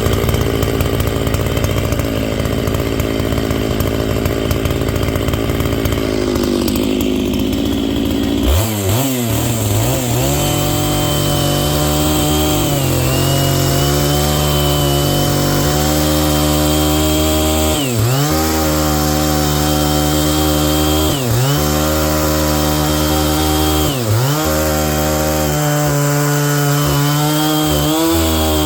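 Stihl MS 660 two-stroke chainsaw with a 36-inch bar and ripping chain, ripping logs lengthwise for firewood. The engine runs low and pulsing for about eight seconds, then revs up and holds high, its pitch dipping briefly several times as the chain bogs in the cut.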